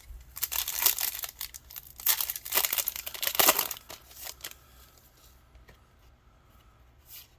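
Foil trading-card booster pack crinkling and tearing as it is ripped open, in a run of crackly rustles for about four and a half seconds, then only faint handling rustle with one short crinkle near the end.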